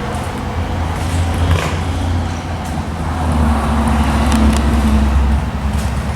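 A motor vehicle's engine rumbling close by, growing louder to a peak about four to five seconds in and then easing off.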